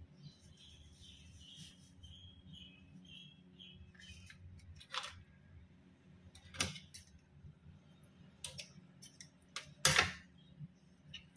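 A thin plastic bag crinkles as it is pulled out of a raw chicken's cavity. Then the chicken is handled on a wooden board, giving a few sharp wet slaps and clicks, the loudest near the end, over a steady low hum.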